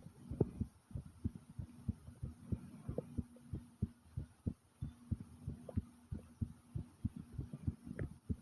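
A person's heart beating fast and loud: quick, low thumps, several a second. A faint low steady hum comes and goes underneath.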